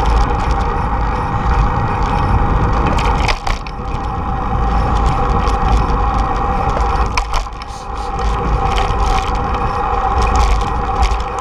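Wind rushing over the microphone of a camera riding on a moving bicycle, over the rumble of tyres on pavement, with scattered clicks and rattles from the bike over bumps in the path.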